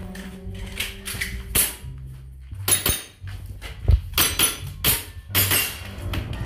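Airsoft pistol firing a string of shots: about a dozen sharp pops at uneven spacing, mixed with knocks.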